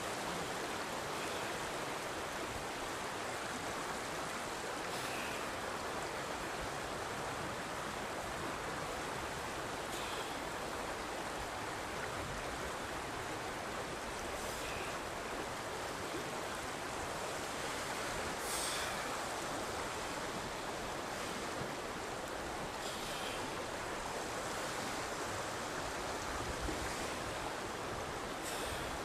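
Steady rushing of a mountain river, an even hiss of flowing water, with faint short rustles about every four to five seconds.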